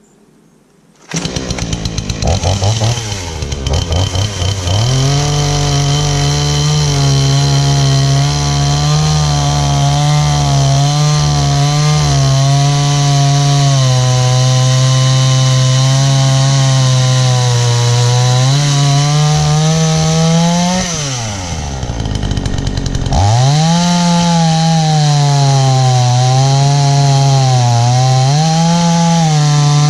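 Two-stroke gas chainsaw starting up about a second in, then running at full throttle as it cuts a chamfer into the ends of log skids, its pitch wavering under load. About two-thirds of the way through the engine drops back toward idle, then revs up again for the next cut.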